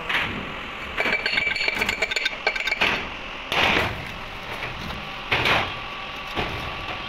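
Metal clinking and scraping as a compressor oil filter element is worked loose and slid out of its steel housing: a quick rattle of small ringing clicks, then a few short scrapes.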